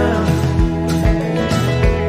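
Background country song in an instrumental gap between sung lines, with a steady beat of low drum hits.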